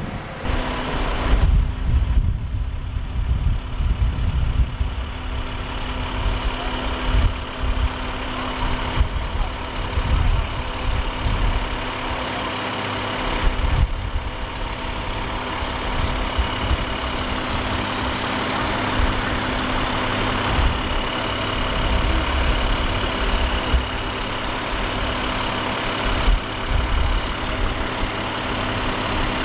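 Fire engine running at idle, a steady engine hum with irregular low rumbling underneath.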